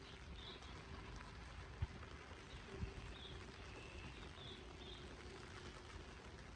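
Steady rain falling, with a few faint short bird chirps and two soft low thumps about two and three seconds in.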